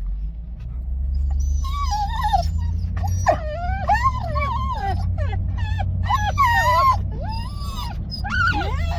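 Shar Pei dogs whining: a run of high, wavering whines that bend up and down in pitch, sometimes overlapping, over a steady low rumble.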